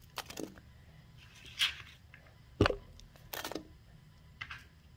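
Short kitchen handling sounds as onion goes into a slow cooker: a few brief rustles and knocks, with one dull thud about two and a half seconds in.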